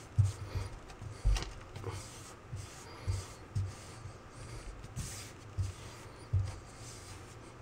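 A hand rubbing and pressing on freshly set travertine wall tiles, seating them in the adhesive, with about ten soft, dull bumps at irregular intervals.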